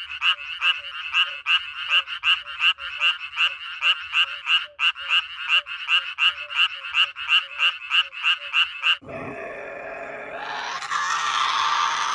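A frog calling in a fast, regular series of short croaks, about three a second. About nine seconds in the calls stop and a louder, harsher, noisier animal sound begins and builds.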